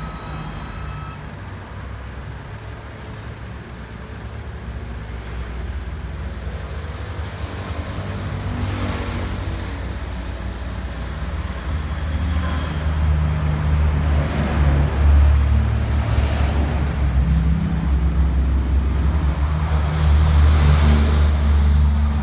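A motor vehicle running, its low hum growing steadily louder, with a few passing swells of noise. An electronic siren tone cuts off about a second in.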